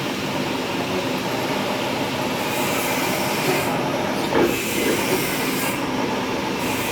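Metal lathe running, a steady mechanical grinding noise with thin high squealing tones over it and a brief louder swoop a little past halfway.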